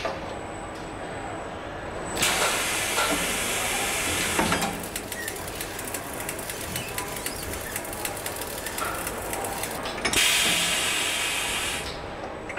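Compressed air hissing in two bursts, each about two seconds long, from the pneumatics of a robotic assembly station. The first burst comes about two seconds in and the second about ten seconds in. Between them, rapid faint ticking sits over a steady factory background.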